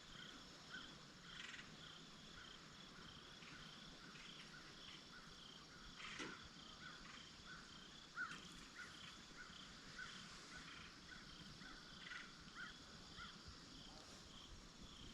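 Near silence with a faint outdoor chorus of calling animals: short, high notes repeating a couple of times a second. A faint single click about six seconds in.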